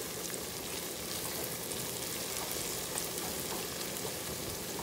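Browned onions frying in hot oil in a pot, sizzling steadily with small crackles as they are stirred with a silicone spatula.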